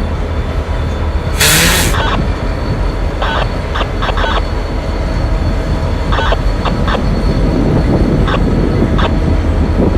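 Freight train running through a rail yard: a steady low diesel locomotive rumble with scattered short clicks and squeaks from the wheels, and a brief loud hiss about a second and a half in.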